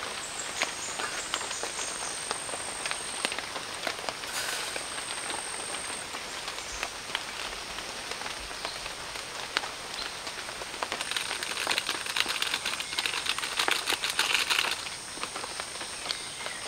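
Steady rain falling on wet forest foliage, many separate drops heard. It grows denser and louder about eleven seconds in, then eases near fifteen seconds.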